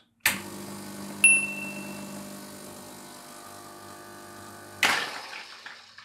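Gaggia Classic Pro's vibratory pump humming steadily as it pumps water against the blind disc during a water-only backflush, with a sharp click and brief ring about a second in. Near the end the pump stops and the three-way solenoid valve releases the pressure with a sudden hiss that fades away.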